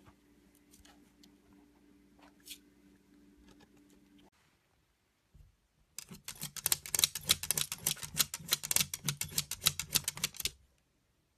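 Dachshund's claws scratching rapidly at a mesh window screen: a dense run of loud scratchy clicks lasting about four and a half seconds, starting about halfway through. Before it, only a faint steady hum with a few soft clicks.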